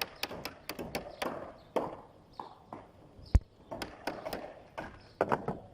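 Construction work: a quick run of sharp taps and clicks with one loud knock about three and a half seconds in.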